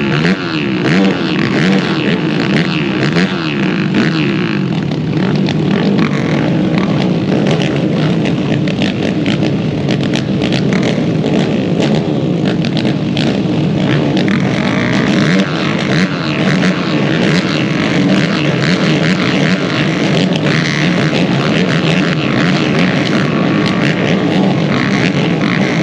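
A pack of motocross racing ATVs, many engines revving together, their pitches rising and falling over one another.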